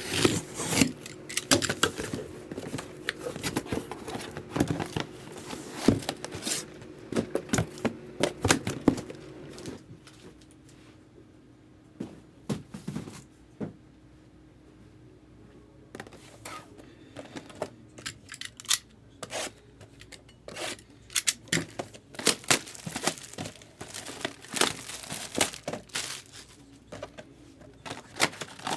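Plastic wrapping being torn and crinkled off sealed trading-card boxes, with cardboard being handled: irregular crackles and rustles that ease off for a few seconds around the middle, then pick up again.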